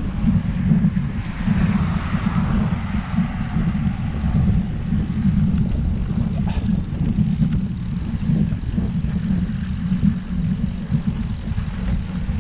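Wind buffeting the microphone of a camera on a moving bicycle: a loud, steady, fluttering rumble with a faint hiss that swells briefly about two seconds in.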